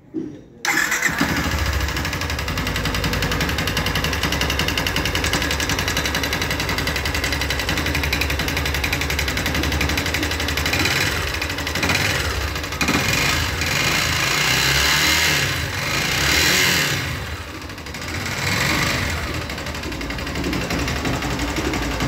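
Yamaha XTZ Crosser 150's single-cylinder air-cooled four-stroke engine starting about half a second in and running with a rapid, even rhythmic knock, revved up a few times. The mechanic says this strong noise is not from the cam chain or valves and traces it to the piston rocking loosely in the cylinder, one of the causes of this kind of engine noise.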